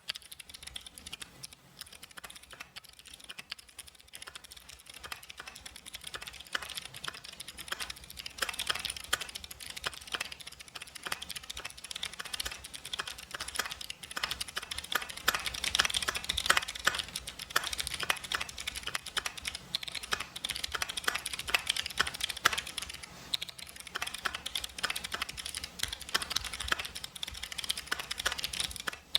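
Mechanical keyboard with clicky jade switches being typed on continuously, a fast irregular run of sharp key clicks and clacks, getting a little louder about eight seconds in.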